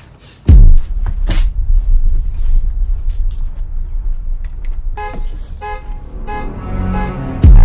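Car alarm going off: the horn honks in quick repeated blasts from about five seconds in, over a steady low rumble. A deep boom falling in pitch comes just after the start and again near the end.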